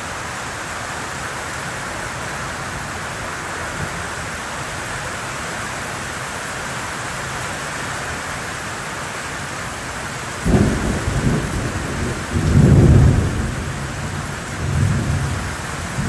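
Heavy tropical rain pouring steadily. About two-thirds of the way in, thunder rumbles in, loudest in a second swell, with a third rumble near the end.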